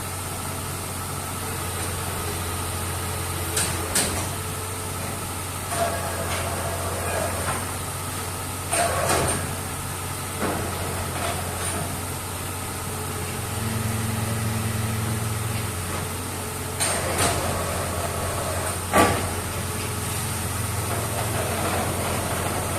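Borewell drilling rig running with a loud, steady low drone, broken by irregular sharp knocks, the loudest about three-quarters of the way through.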